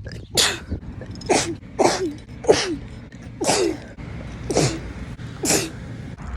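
A person sneezing seven times in quick succession, about one a second, each a sharp hissing burst ending in a short falling vocal tail.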